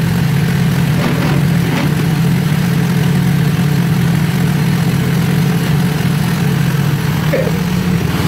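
Small ATV engine idling steadily.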